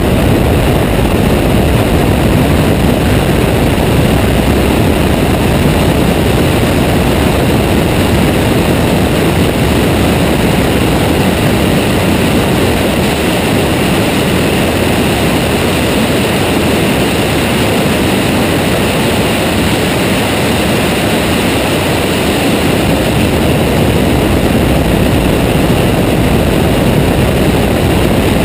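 Ferrari F12berlinetta V12 running at speed, largely buried under a steady rush of wind and road noise on a camera mounted outside the car on its front wing.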